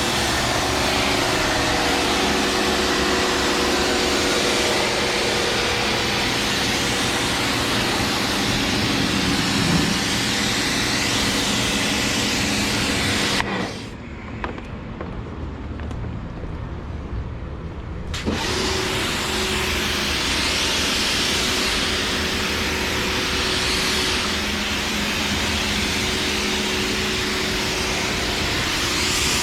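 Steady, loud machine running with a strong hiss and a hum. It drops away for about four seconds in the middle, then comes back.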